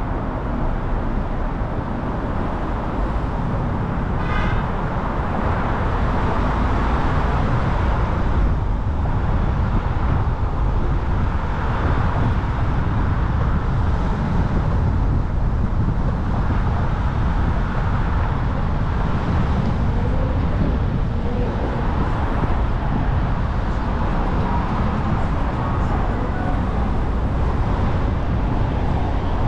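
Car driving through city traffic: a steady low rumble of engine and tyre noise, with a brief high-pitched sound about four seconds in.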